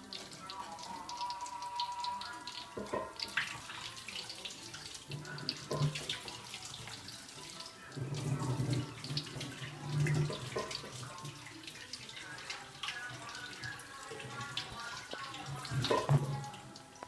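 Nuggets deep-frying in hot oil in a wok: a steady sizzle with many small crackles and pops of spattering oil.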